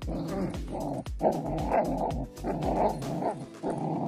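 A puppy growling in a string of short growls, one every half second or so, while biting and tugging at a person's arm in bite-development play.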